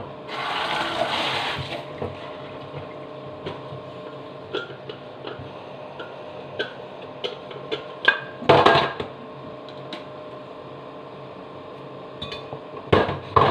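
A kitchen tap runs briefly, then a greasy exhaust fan plate is handled and washed in a stainless-steel sink, with scattered clinks and knocks over a steady hum. There are louder clatters about eight seconds in and again near the end.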